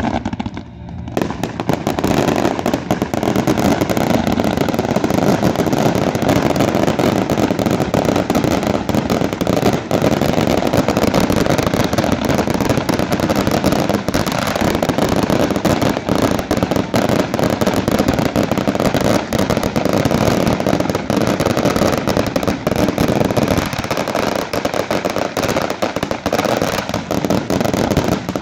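A dense fireworks barrage: many ground-launched aerial fireworks fire and burst in rapid, overlapping succession. It starts about a second in and keeps up without a break.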